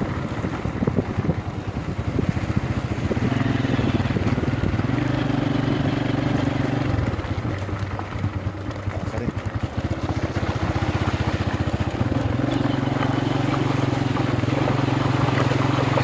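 Motorcycle engine running while riding, its note steady but dropping back briefly about two seconds in and again for a few seconds around the middle.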